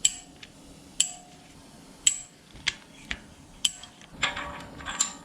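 Sharp metal clinks from tools and engine parts being handled, about once a second, then several in quick succession near the end.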